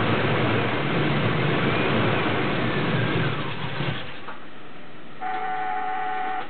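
Oldsmobile 455 cubic-inch V8 running, still cold from its first start after months of storage. Its sound stops abruptly about four seconds in. About a second later a steady electronic warning tone sounds for just over a second.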